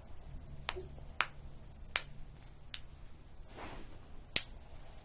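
Sharp joint cracks and pops from a neck and back adjustment: five separate clicks at uneven intervals, the loudest near the end.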